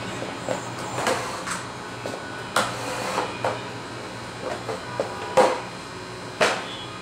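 Irregular knocks and taps as a toddler handles a book on a plastic children's activity desk, about ten in all, the two loudest after about five seconds, over a low steady hum.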